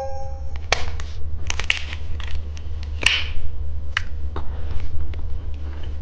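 Hard candy being crunched and chewed close to the microphone: irregular crisp cracks and clicks, the loudest about three seconds in, over a low steady hum.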